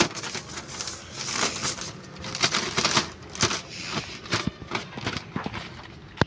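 Thin plastic nursery bag crinkling and rustling in irregular crackles as it is opened out and pressed by hand, with one sharp click near the end.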